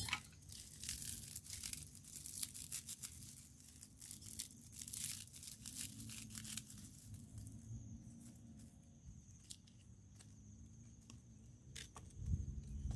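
Dry twigs and sticks crackling, snapping and clattering as they are handled and laid into a campfire pit, busy for the first half and thinning to a few single snaps later.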